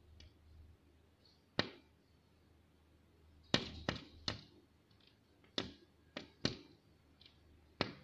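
A red-vented bulbul striking its beak against window glass: eight sharp taps at irregular spacing, with two quick runs of three in the middle.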